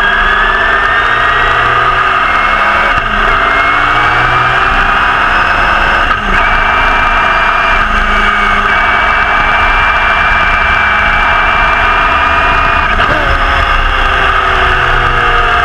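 Repco 830 V8 of a 1969 Brabham BT31 racing car at full throttle, heard onboard: the revs climb and drop sharply at two upshifts, a few seconds apart, then hold high and steady. Near the end the engine note falls as the car slows.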